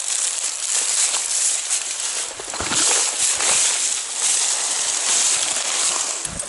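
River water rushing and splashing as anglers wade into the stream, with a dull low thump about two and a half seconds in and another near the end.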